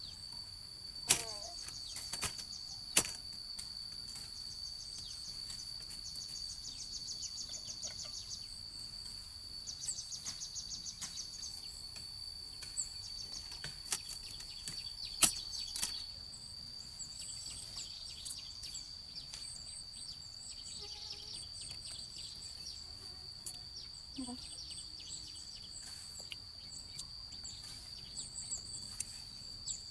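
Insects chirping outdoors: a steady high-pitched drone with rapid trills coming and going. A few sharp knocks cut in, the loudest about a second in, at three seconds and about halfway through.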